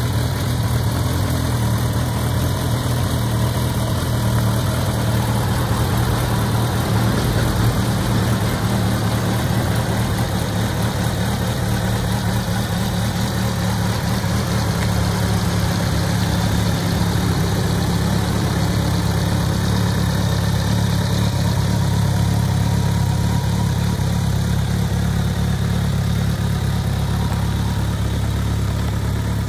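Kawasaki ZRX1200 DAEG's liquid-cooled inline-four idling steadily through an aftermarket PMC megaphone exhaust.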